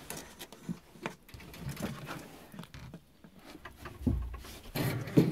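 Quiet rustling and scattered light taps and clicks as ferrets and a hand move about in a wooden hutch, with a low bump about four seconds in.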